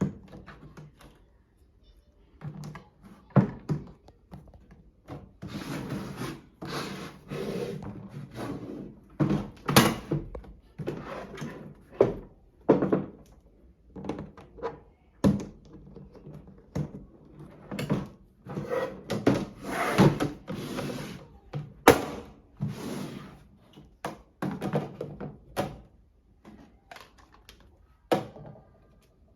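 Parts of a toy washing machine being handled and fitted together: irregular knocks, clicks and thunks with bursts of rattling and rubbing, some sharper clacks about ten, twenty and twenty-two seconds in.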